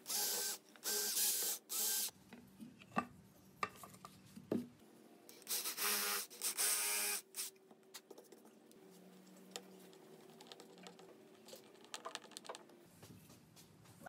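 Cordless drill boring holes through a pine board in short bursts of the trigger: three quick pulses at the start, then a second run of pulses about five seconds in. Small knocks and clicks of handling follow.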